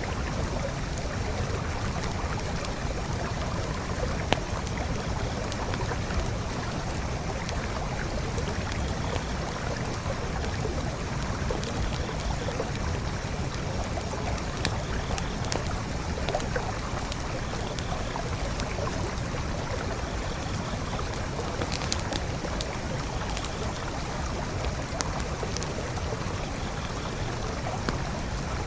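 Forest creek flowing steadily, with a few sharp pops and crackles from a wood campfire standing out over the rushing water.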